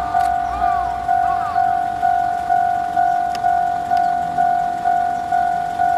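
Japanese level-crossing warning bell ringing its electronic clang at a steady pace of about two strikes a second. Under it, a low rumble of the passing train dies away in the first second.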